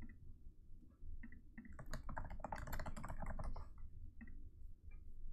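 Typing on a computer keyboard: a quick run of keystrokes lasting about two seconds, starting about two seconds in, with a few single clicks before and after.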